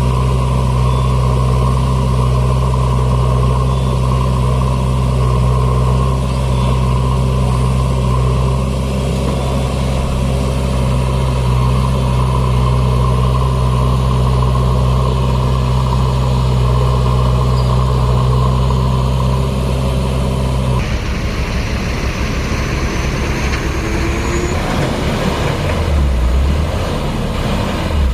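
Heavy diesel engine running steadily with an even, deep hum; about three-quarters of the way through, the sound changes abruptly to a rougher, noisier engine.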